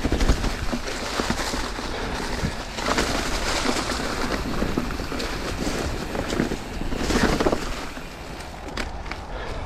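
Mountain bike descending a leaf-covered dirt trail at speed: tyre roar over leaves and dirt mixed with wind buffeting the helmet-camera microphone, surging about three seconds in and again about seven seconds in.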